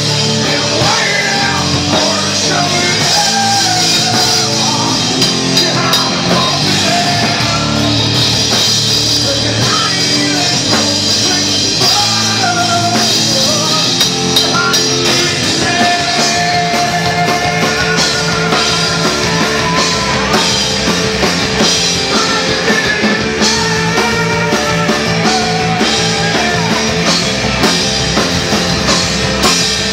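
A live rock band playing at full volume: electric guitar and a drum kit with cymbals, with a male lead singer's voice over them.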